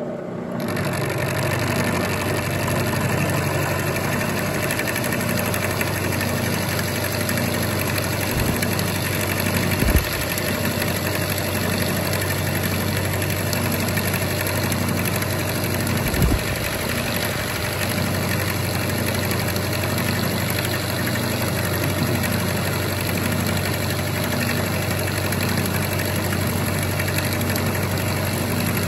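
Bridgeport Series 1 milling machine taking a 0.100-inch-deep cut with a roughing end mill across a metal block. A steady machining noise and motor hum start about half a second in, over a slow regular pulsing, with a few short low thumps, the loudest about ten seconds in.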